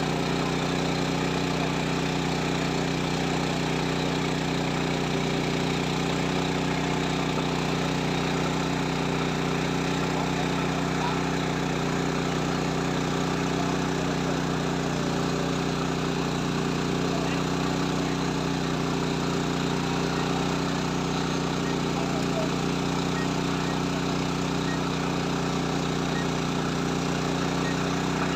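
A steady, unchanging engine-like hum at constant pitch, with no starts, stops or revving.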